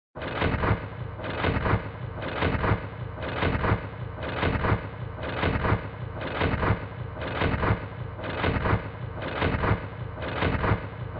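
M249 light machine gun firing, slowed down: a dense, continuous rumble that pulses about once a second, each pulse one stretched-out shot of the burst.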